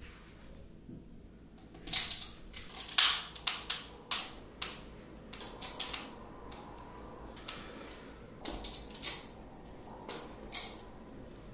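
Light, irregular clicks and clinks of gold chain necklaces and their clasps tapping against a clear plastic hook strip on a cabinet door as they are hung one by one. The clicks come in small clusters, starting about two seconds in.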